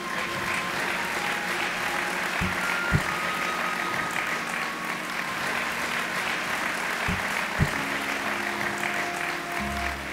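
Audience applauding, with faint held music notes underneath. A few dull low thumps sound through it, two about two and a half to three seconds in and two more about seven seconds in.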